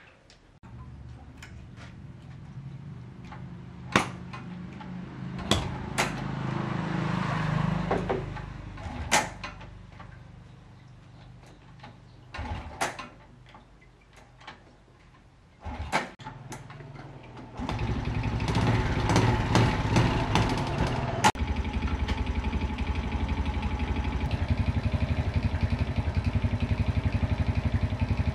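Restored motorbike engine running, its level rising and falling, with sharp clicks and knocks now and then; about three-quarters of the way through it settles into a steady idle with a fast, even pulse.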